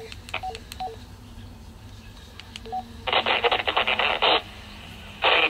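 Baofeng GM-5RH handheld radio's keypad beeps, short blips alternating between two pitches, as the receive frequency is stepped. About three seconds in, a loud burst of hiss-like noise comes from its speaker for over a second, and another starts near the end.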